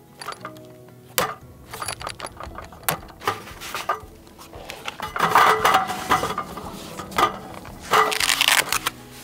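Xtar SP100 folding solar panel being handled and unfolded on a table: a run of sharp clicks and knocks, with two longer scraping, rubbing stretches about five and eight seconds in. Soft background music underneath.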